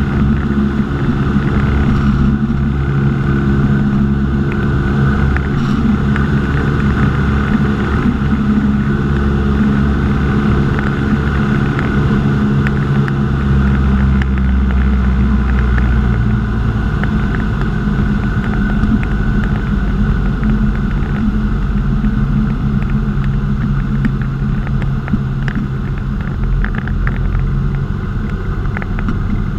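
A single-engine light aircraft's engine and propeller drone steadily, heard from inside the cockpit in flight. About halfway through, the sound shifts deeper.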